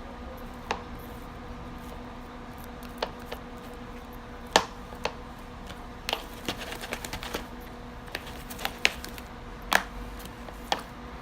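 Irregular clicks and taps of a utensil knocking against a bowl while sticky slime is stirred, a dozen or so scattered through the stretch.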